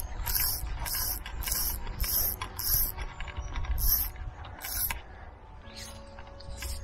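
Fly reel's click-and-pawl ratchet buzzing in short bursts as line is pulled off the reel by hand, about two pulls a second for the first three seconds, then a few more spaced further apart.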